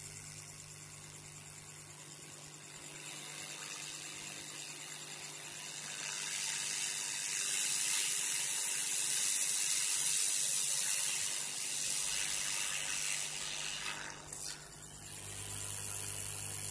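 Hot-air rework gun blowing a steady hiss onto a circuit board, heating a replacement IC chip so it can be set in place. The hiss swells a few seconds in and dips briefly near the end, over a low steady hum.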